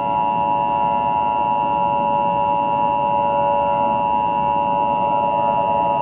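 Emergency Alert System attention signal: a steady two-tone alarm sounding without a break.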